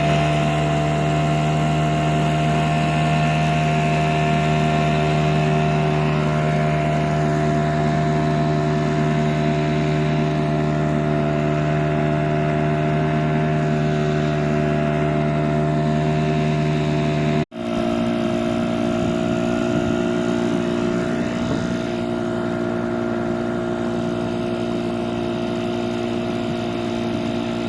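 A 2004 Suzuki 2.2 hp outboard motor running steadily at a constant speed. About two-thirds of the way through the sound cuts out for an instant, then the motor runs on a little quieter with a slightly different tone.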